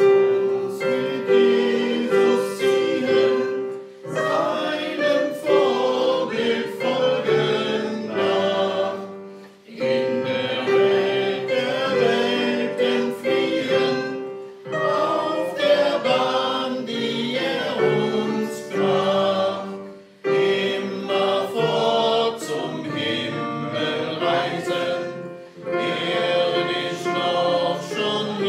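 A hymn played on a digital stage piano with choir-like voices, in lines of about five seconds with a short pause between each.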